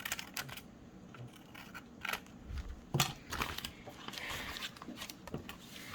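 Scissors cutting paper, trimming an edge: several separate snips with pauses between them.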